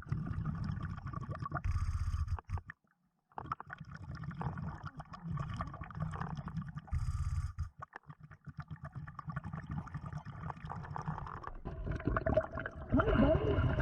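Underwater sounds of a diver on a surface-supplied air system: a low rumble with scraping and knocking of handling, and two brief hisses of exhaled bubbles about five seconds apart.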